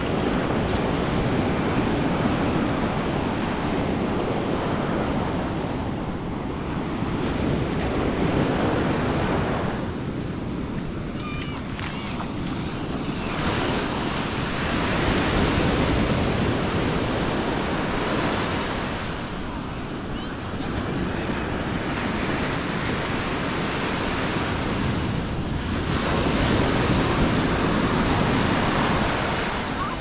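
Atlantic surf breaking and washing up over the sand at the water's edge: a steady rush of foam that swells and eases as each wave comes in and draws back.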